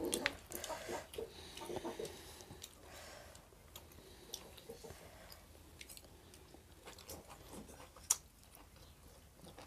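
Faint chewing of people eating boiled pig offal, with scattered small clicks and one sharp click about eight seconds in.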